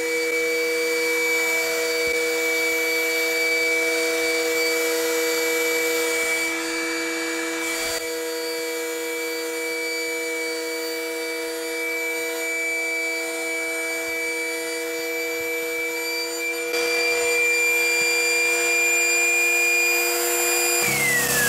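Two battery-powered inflatable-boat pumps, a Bravo BST 800 and a Bravo BTP 12 Digital, running together on their first (turbine) stage with a steady whine as they fill the boat's tubes. Near the end the pitch drops as the BST 800 switches over to its second, twin-piston stage.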